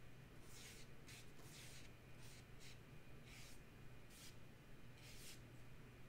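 Paintbrush stroking watercolour paper: about ten short, faint scratchy swishes at an uneven pace, over a low steady hum.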